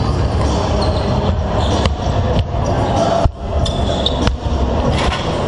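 Basketballs bouncing on a hardwood court during warm-up, a run of irregular thuds every half second to a second, over the steady background noise of a large sports hall.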